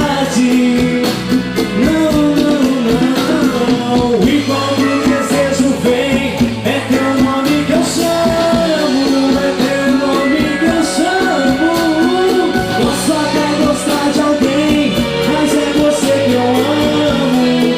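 Live band music: a melody line over bass and a steady drum beat, in a passage where no lyrics are picked out.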